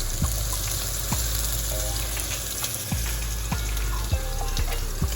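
Beef tenderloin searing in a hot oiled pan: a steady sizzle with scattered sharp pops of spitting fat.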